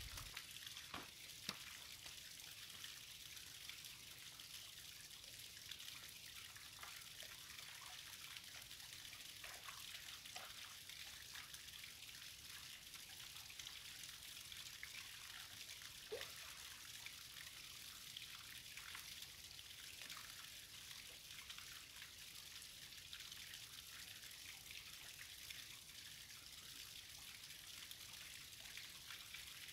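Faint, steady trickle of flowing water, with scattered small drips and splashes.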